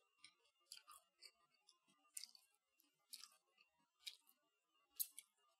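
Close-miked chewing of a crispy breaded chicken-and-cheese ball, faint, with a crunch about once a second.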